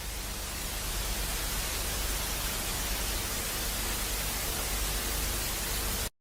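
Steady static hiss, rising slightly over the first second, then holding even until it cuts off abruptly near the end.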